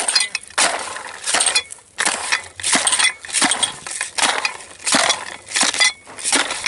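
Sharpened, weighted tile-scraper blade used as an ice chipper, striking down into the ice of a fishing hole over and over, about three crunching strokes every two seconds.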